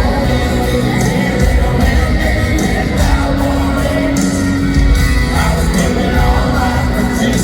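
Live country band playing loud through an arena sound system, heard from among the audience, with singing and crowd yells over it.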